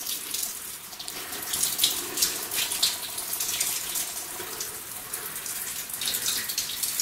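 Water splashing and trickling, with many small irregular splashes over a steady hiss.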